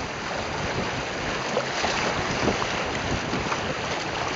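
Steady rush of river water through rapids, with wind buffeting the microphone.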